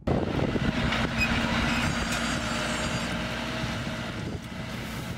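Tractor engine running steadily under load as it pulls a tandem disc harrow through the soil.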